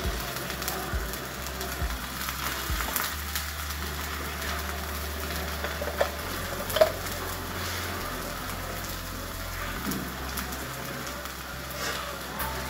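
Oil sizzling and crackling around the edge of an onion uttapam frying on a dosa tawa, just after oil has been drizzled around it. There is a steady hiss with scattered small pops, two of them sharper about six and seven seconds in.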